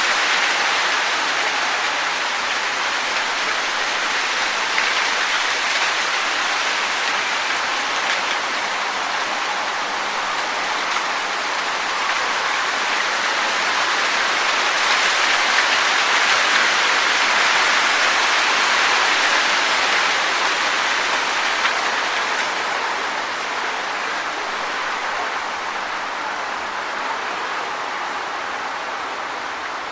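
Wind blowing through trees, rustling the leaves in a steady hiss that swells a little midway and eases slightly toward the end.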